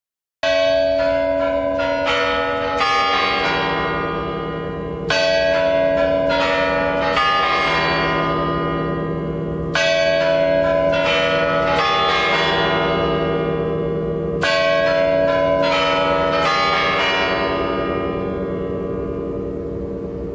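The Kremlin's Spasskaya Tower chimes striking midnight: its bells play the quarter-hour melody in four phrases of about four notes each, one phrase starting about every five seconds, each note ringing on into the next.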